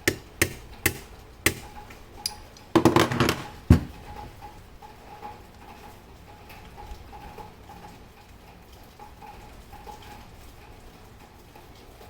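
Sharp metallic clicks, four or five about half a second apart, then a brief rattling clatter ending in a knock about four seconds in: small metal clock parts or tools being handled.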